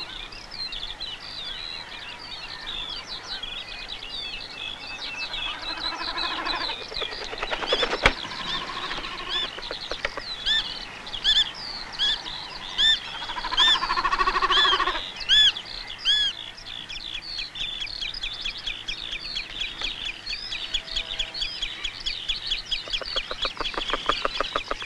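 Wild birds calling: many high, arched chirps, evenly repeated through the middle, over lower, drawn-out calls. There is a sharp click about a third of the way in, and a fast rattling series of pulses near the end.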